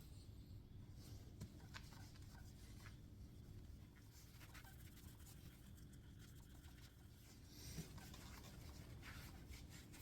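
Faint rubbing of a cloth polishing a metal motorcycle expansion chamber by hand, with a few light ticks and scrapes.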